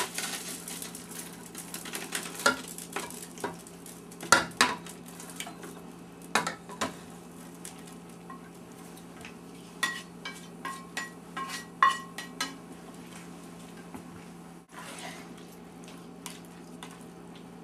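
A utensil knocking, clinking and scraping against a stainless steel skillet and stockpot as sautéed onions are scraped into the soup and stirred in. Several clinks ring briefly about ten to twelve seconds in, over a steady low hum.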